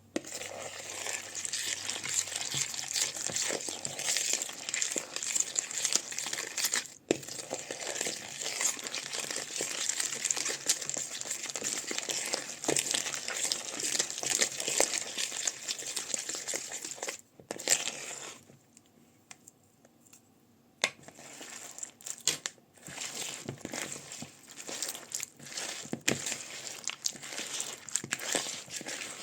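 Crunchy slime being squeezed and worked by hand, giving a dense, continuous crackling and crinkling. It stops for a few seconds about two-thirds of the way through, then resumes in shorter, patchier bursts.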